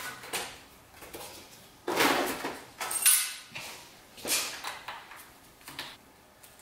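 Clunks and scrapes of a motorcycle seat being taken off a Ducati Monster 696: a few separate knocks and rustles, the loudest cluster about two to three seconds in.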